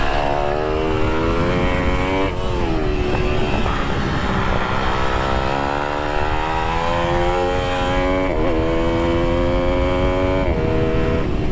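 IMR GP20 pitbike's single-cylinder engine running hard on track, heard from a camera mounted on the bike with wind rushing past. The pitch climbs steadily under throttle and drops sharply a few times as the rider changes gear and backs off for corners.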